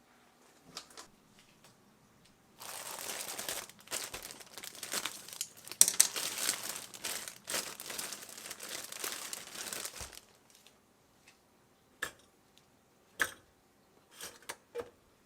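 Packaging crinkling and rustling as it is handled for about seven seconds, then a few short sharp clicks and taps.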